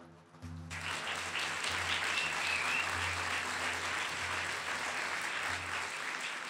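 An audience breaks into applause about a second in, with a brief whistle from the crowd. A low steady hum from the end of the music runs underneath and stops near the end.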